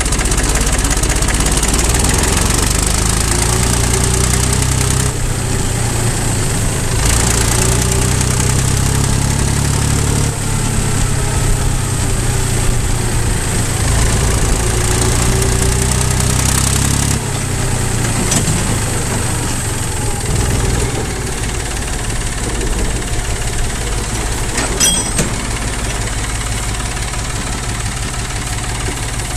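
David Brown 780 tractor's diesel engine running as it is driven, heard close from the driver's seat; the engine note steps up and down several times as the revs change. A brief sharp click near the end.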